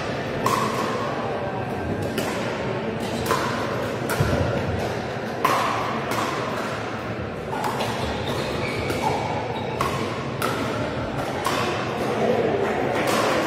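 Pickleball paddles hitting the hollow plastic ball: sharp, irregular pops from rallies on several courts, each echoing briefly in a large sports hall, over a steady background hubbub.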